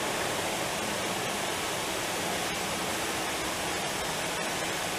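Steady, even hiss of machinery running, with a few faint ticks.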